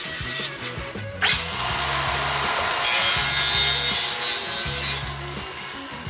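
Hand-held angle grinder with an abrasive disc grinding a burr off a steel sheet-metal patch panel. It starts about a second in and is loudest for about two seconds in the middle before easing. Background music with a steady beat plays under it.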